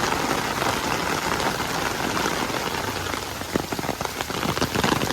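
Heavy rain falling steadily, with a run of sharper, closer drop hits in the second half.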